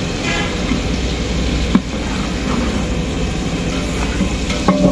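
Steady roar of a gas burner firing under a large aluminium pot of oil and sliced onions. A sharp knock about two seconds in, and more knocks near the end as a long iron ladle starts stirring the onions.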